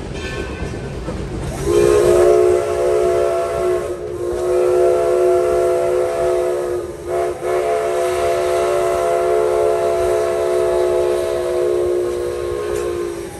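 Steam locomotive whistle blowing one long blast of about eleven seconds, starting about two seconds in and dipping briefly twice, over the low running noise of the train.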